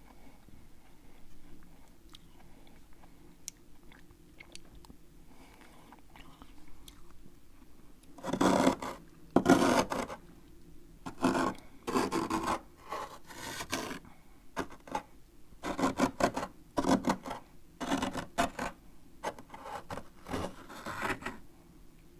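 A spoon scraping built-up frost inside a freezer: faint small scratches at first, then from about eight seconds in a run of about a dozen loud, rasping scrapes, each about half a second long.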